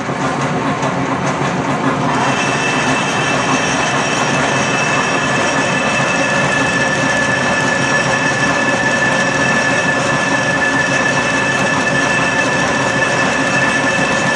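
National Machine Tool key seat miller running, milling a keyway in one pass into a blind bore in mild steel: steady, loud machine noise, joined about two seconds in by a steady high whine.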